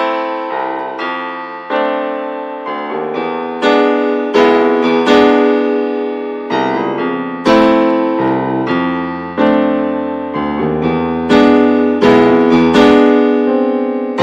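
Background piano music: a slow piece of single notes and chords, each struck and then fading, a new one about every half second to second.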